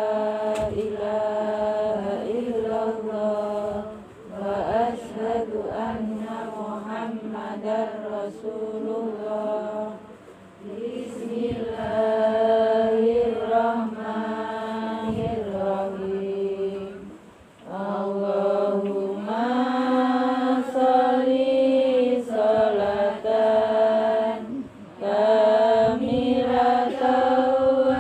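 A group of voices chanting Islamic prayers together in unison, on long held, melodic phrases, with brief pauses between phrases: congregational recitation at a yasinan gathering.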